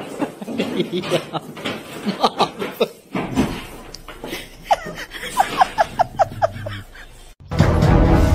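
A person laughing in short bursts, breaking into a quick run of high-pitched giggles about five seconds in. Near the end it cuts to background music.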